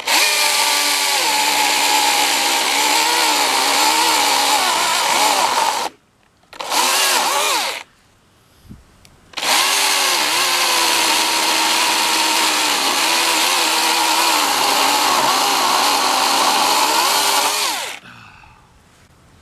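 Husqvarna 120i battery-powered chainsaw cutting through a fallen tree in three runs: a long cut, a short burst, then a second long cut, with brief pauses between. The motor's pitch dips and wavers as the chain bites into the wood.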